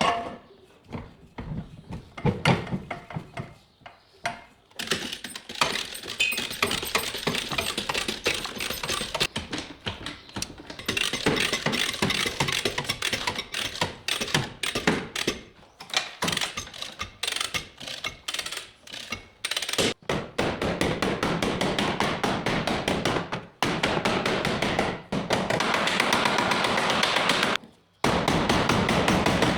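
Sheet-metal body work on a car: a few scattered hammer taps, then a dense run of rapid hammering and metal-working noise, broken off by sudden stops.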